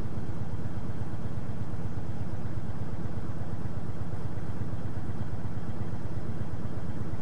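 A truck engine idling steadily: a low, even rumble with a fast regular pulse, unchanging throughout.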